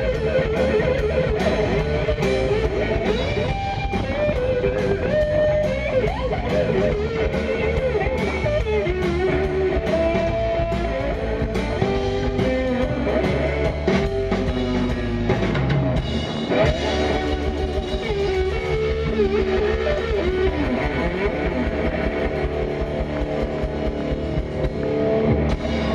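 Live blues band playing amplified electric guitars with bending notes over a drum kit.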